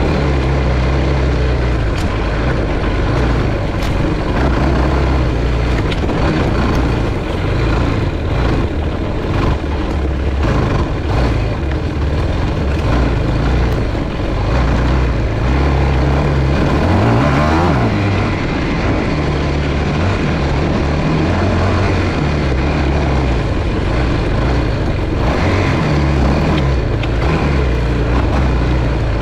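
Yamaha YFZ450 ATV's single-cylinder four-stroke engine running under throttle while riding a dirt trail, close to a camera mounted on the quad. The revs drop and climb again about halfway through, and rise and fall a few times near the end.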